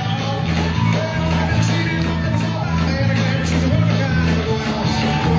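A live country-rock band playing loudly through a PA. Bass guitar holds steady notes that change in steps under drums and electric guitar, with a melody line that slides between notes above.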